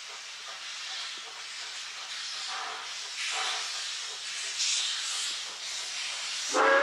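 Rx-class steam locomotive working: a steady hiss of steam with intermittent puffs of exhaust, growing louder. Near the end its steam whistle starts, loud and steady, as it nears a level crossing.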